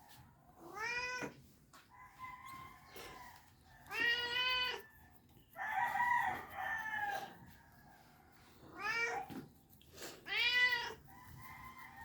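Domestic cat meowing insistently: a series of drawn-out meows a few seconds apart, each rising and then falling in pitch. It is the persistent morning meowing of a cat its owner takes to be hungry.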